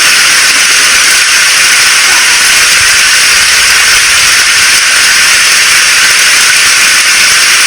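Rain falling steadily: a loud, even hiss that is mostly high-pitched with little low rumble.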